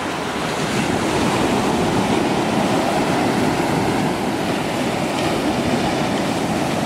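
Ocean surf breaking and washing up onto a sandy beach, a steady rush of waves.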